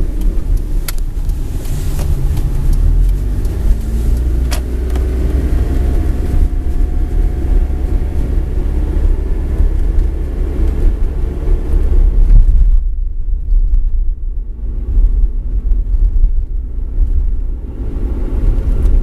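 Mitsubishi eK Sport driving, with road noise and a low rumble from the left front wheel: the sign of a failing left front hub bearing. The higher road hiss drops away sharply about two-thirds of the way through while the low rumble carries on.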